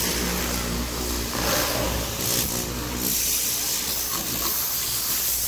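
High-pressure plunger-pump car washer running and spraying: a steady hiss of the water jet over the hum of its electric motor and pump.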